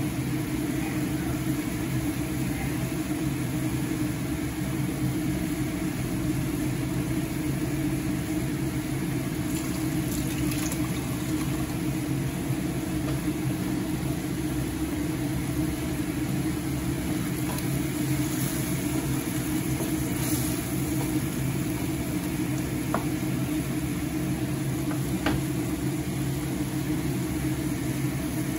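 Chicken pieces bubbling and sizzling in liquid in a stainless-steel frying pan, over a steady low hum. There are a couple of faint ticks late on.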